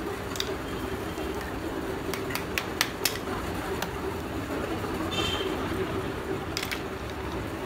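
Dry slabs of roasted multani mitti (fuller's earth clay) clinking against each other as they are picked up and shifted in a pile. Scattered sharp clicks come in a quick cluster a couple of seconds in and again near the end, over a steady low hum.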